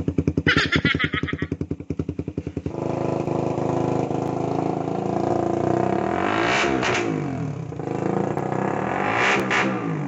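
Suzuki Raider R150's single-cylinder four-stroke engine running through a Charama open pipe with the silencer out. It starts at a choppy, pulsing idle, then the revs come up about three seconds in and are held. Two sharper rev blips come near the end.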